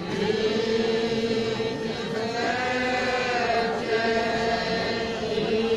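Small group of men singing a traditional Sicilian Holy Week lament unaccompanied, in several voice parts. They start together on long held notes, and a higher voice joins about two seconds in.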